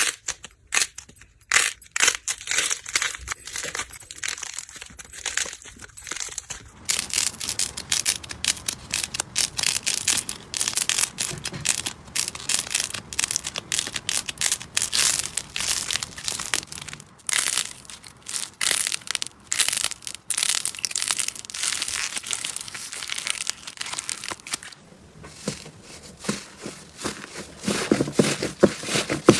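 Slime being squeezed and worked by hand: a stream of sticky crackling clicks and pops, sparse at first and much denser from about seven seconds in.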